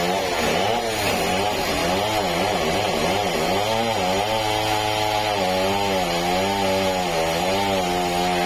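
Engine-driven sawmill saw running through timber, its motor hum dipping and recovering in pitch for the first few seconds, then holding steadier under a steady cutting hiss.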